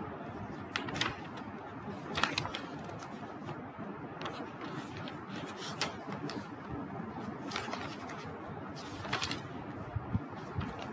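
Steady room background noise with a handful of short, separate clicks or rustles spread through it.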